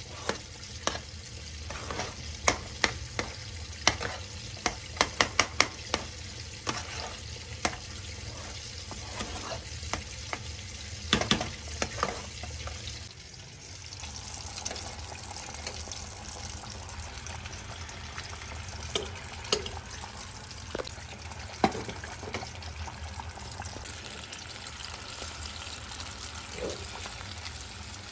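A metal spoon stirring mashed potatoes in a saucepan, clicking and knocking against the pot many times in quick runs over the first half, then only now and then. Under it, chicken frying in a pot of hot oil gives a steady sizzle.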